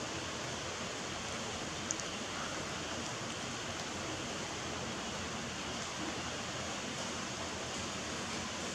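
Steady, even hiss with one faint click about two seconds in.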